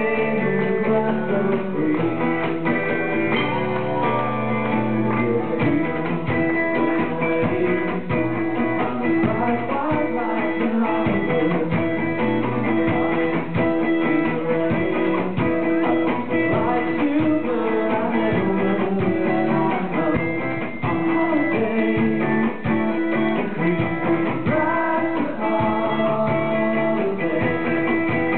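Live rock band playing amplified: electric guitars and drums, with singing.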